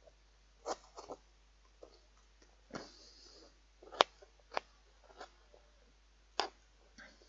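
A knife chopping an onion on a plate: irregular, spaced-out sharp taps as the blade cuts through and strikes the plate, with pauses of up to a second or so between them.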